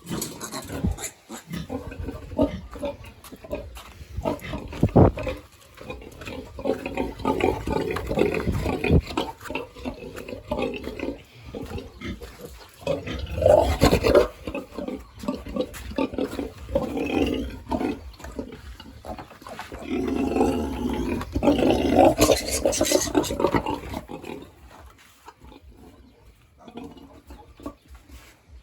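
Sow and piglets vocalising in irregular bouts, with louder bursts about 5, 14 and 22 seconds in, quieter over the last few seconds.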